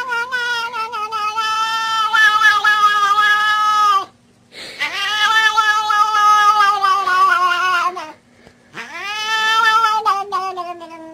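A cat yowling: three long, drawn-out calls of a few seconds each, each holding a fairly steady pitch and dropping at the end, with short breaks between them.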